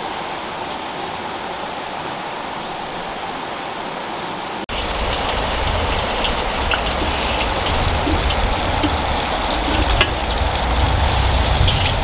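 Steady hiss of outdoor background noise. About five seconds in, it cuts to a wood cooking fire under a wok, with a low rumble and scattered sharp crackles.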